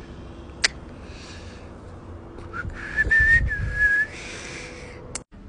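A person whistling a short, high two-part note about three seconds in, lasting about a second, with a low rumble of handling or wind under it. A sharp click sounds about half a second in and another just before the end.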